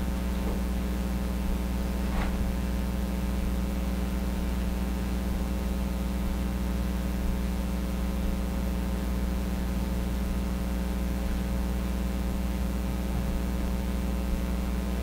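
Steady electrical mains hum with a faint hiss underneath. Several fixed tones hold constant throughout.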